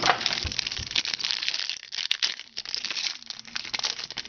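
Foil Topps Chrome card pack wrappers crinkling and crackling as packs are handled and opened, a dense run of irregular crackles.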